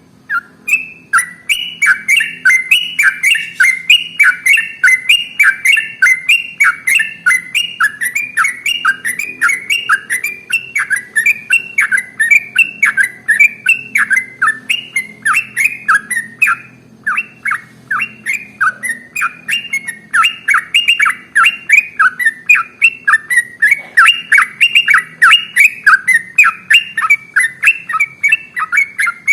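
Yellow-vented bulbul (trucukan) singing a long, unbroken run of rapid chattering notes, about four a second, with a brief pause about halfway through.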